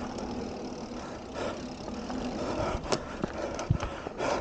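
Mountain bike coasting down a packed-dirt trail: tyre roll and wind noise with a faint steady hum, and a few sharp knocks of chain and frame over bumps about three seconds in.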